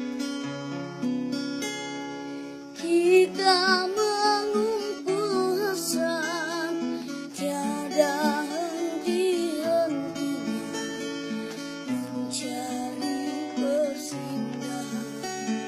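Acoustic guitar strumming chords, joined from about three seconds in by a singing voice carrying a melody with vibrato.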